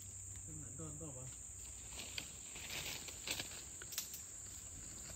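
Insects droning steadily at a high pitch, with a few sharp knocks and rustles about two, three and four seconds in.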